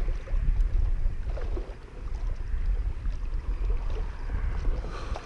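Wind buffeting the camera's microphone, a steady, gusting low rumble.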